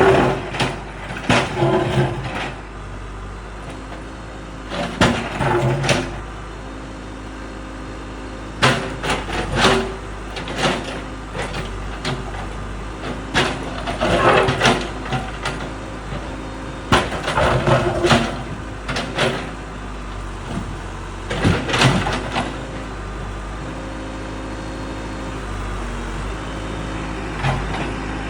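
Case 580 backhoe loader's diesel engine running steadily while its steel bucket digs into and breaks up a concrete floor. Loud scraping and clanking of broken concrete come in irregular bouts every few seconds.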